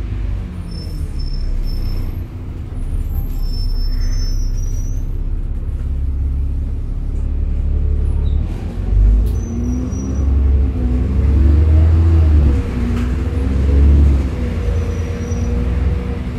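Bus engine and drivetrain heard from inside the passenger cabin: a steady low rumble, with the engine note rising and falling in the second half as it pulls. A few faint high squeaks sound in the first few seconds.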